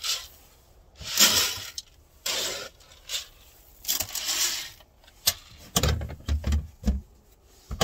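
Rummaging through objects by hand: three bursts of rustling and scraping, the first the loudest, then a run of knocks and dull thumps in the last few seconds.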